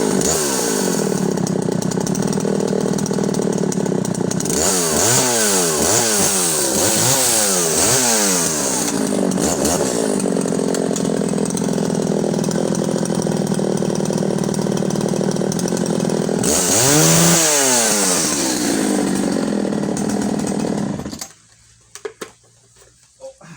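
Husqvarna Rancher 61's 61cc two-stroke chainsaw engine running hard while cutting through a larch log. Its pitch sweeps down and back up several times as it loads and clears in the cut. The engine stops abruptly near the end, leaving a few faint clicks.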